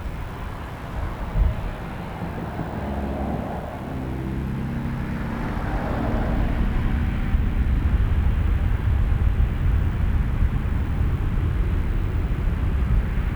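Boeing 777-300ER's GE90-115B turbofans at takeoff thrust: a low jet rumble that grows steadily louder as the airliner rolls and climbs out. There is a brief thump about a second and a half in.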